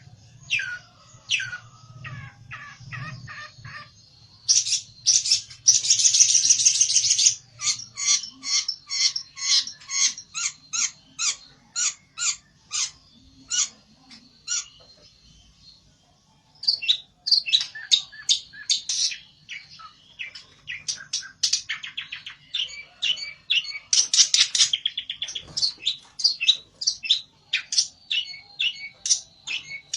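Pelentet, a small songbird, calling agitatedly in the aggressive, rival-seeking manner kicau fanciers call 'ngamuk': a long run of sharp, high chips at about three or four a second, broken by a buzzy rattling trill about six seconds in and again near twenty-four seconds.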